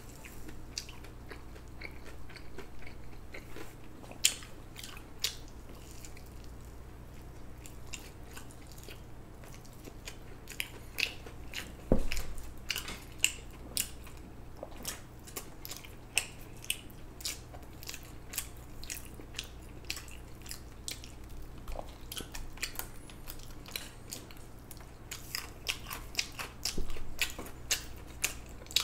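Close-miked chewing and biting: a person eating, with irregular moist and crisp clicks of the mouth and food. There is a single louder knock about twelve seconds in, and a steady low hum underneath.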